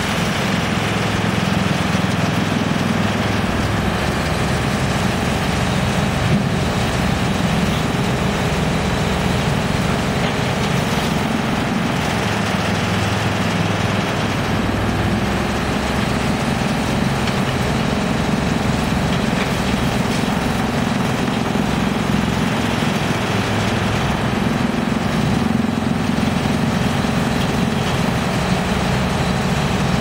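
GX2113 wood chipper with its large electric drive motor running steadily and loudly, mixed with the engine of an excavator working beside it.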